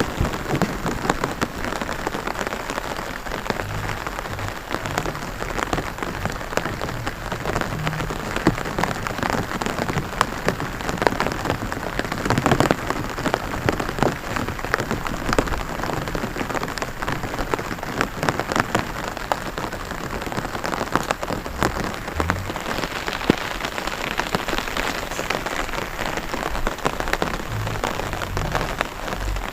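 Rain falling on a rice paddy: a steady, dense patter of countless drops.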